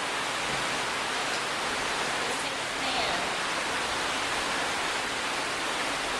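Steady heavy tropical rain falling, an even unbroken hiss.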